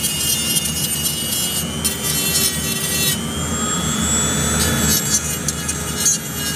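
A handheld rotary tool running at speed with a small disc, grinding paint off a steel frame around a grounding-screw hole to get bare metal for a good ground connection. It makes a steady high whine whose tone shifts about three seconds in.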